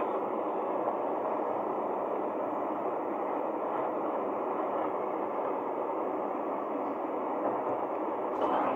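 Steady, muffled running of the Volvo FE kerbsider recycling lorry's diesel engine as it stands at the kerb, with a slightly louder noise swelling near the end.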